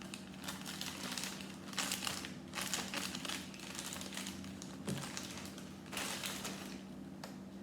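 Hands rummaging through small Lego pieces and plastic packaging: irregular rustling and crinkling in bursts of about a second, with a few sharp plastic clicks.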